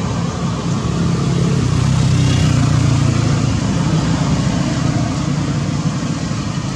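Road traffic: a motor vehicle's engine running as it passes, a steady low hum that swells slightly in the middle and eases off toward the end.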